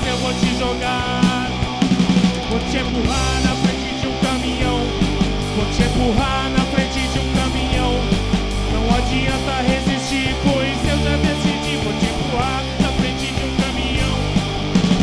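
Punk rock band playing an instrumental passage: electric guitars and electric bass over a drum kit with steady drum and cymbal hits.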